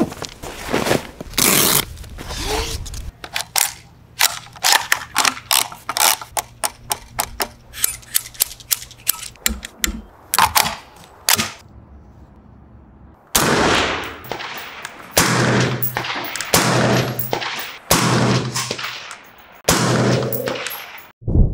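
Gear handling and a quick run of sharp metallic clicks as the POF P415 gas-piston AR-style rifle is handled and readied. About 13 seconds in come about five loud rifle shots, one every second and a half or so, each ringing out.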